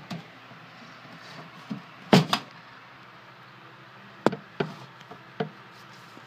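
Sharp knocks and thumps of something being handled: a loud double thump about two seconds in, then three lighter knocks over the next few seconds.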